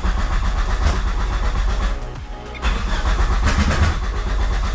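Starter motor cranking the 7-bolt 4G63 engine in two spells with a short break about two seconds in; the engine turns over but does not catch and run, as it fails to start on the new crank trigger setup.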